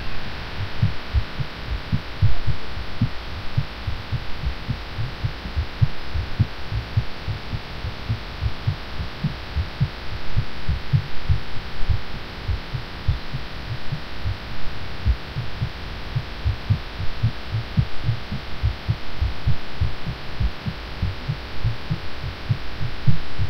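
A woman's fast heartbeat picked up by a microphone: a quick, continuous run of low thumps over a steady hiss. It is racing while she is sick and feeling off after taking cough medicine.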